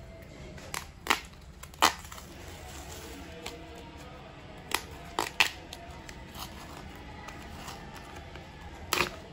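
Soft background music with a handful of short, sharp taps and clicks of small objects being handled, the clearest a little under two seconds in and again about five seconds in.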